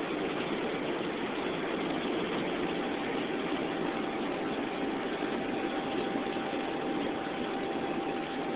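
2001 Toyota Highlander's V6 engine and road noise while driving at steady speed, an even, unbroken drone, with a faint steady high tone joining about three seconds in. The engine runs without misfire after ignition coil number 4 was replaced.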